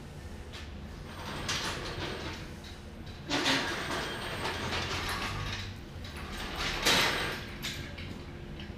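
Handling noise of hand work on wiring: a crimping tool squeezing connectors onto fuel pump wires, with scraping and rustling in three bursts, the loudest near the end.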